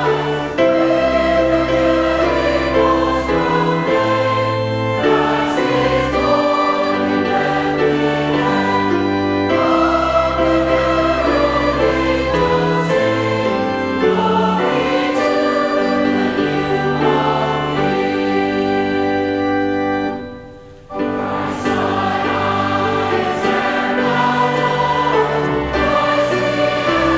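A choir singing with instrumental accompaniment under it, held low bass notes changing every second or two; the music dips briefly about three-quarters of the way through, then carries on.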